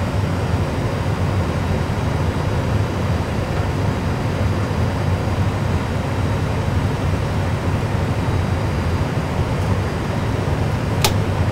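Steady low rumble and engine noise played by an Airbus A320 full flight simulator's sound system as the aircraft rolls along the runway after touchdown. A sharp click sounds near the end.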